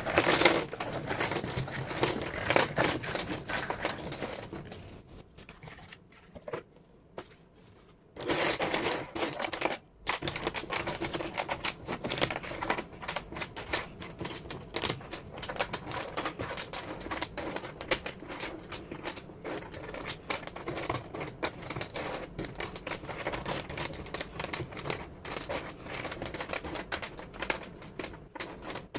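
Small laser-cut wooden jigsaw pieces clicking and clattering against each other and the table as hands sort and spread them, a rapid run of light clicks. Tissue paper rustles at the start, and there is a quieter lull with only a few clicks about five to eight seconds in.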